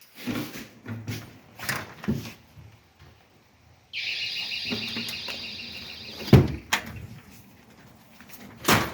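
A door opening with a long, high squeak that starts suddenly and lasts about two seconds, then banging shut about six seconds in, with a few softer knocks before and after.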